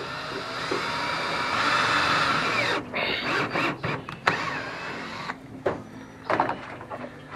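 Ratchet tie-down strap being worked: a steady rushing as the webbing is pulled through, then a series of sharp clicks and knocks from about three seconds in.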